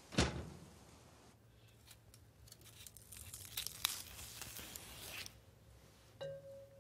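Strings being pulled off a fresh celery stalk with a small knife. A crisp snap comes at the start, then a couple of seconds in a run of rasping, tearing pulls as the fibres strip away.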